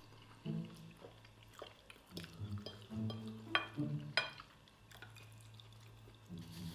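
Eating sounds of a mukbang: chewing, and metal cutlery clinking against a ceramic plate, with two clear ringing clinks around the middle. Quiet background music with low, stepping bass notes plays underneath.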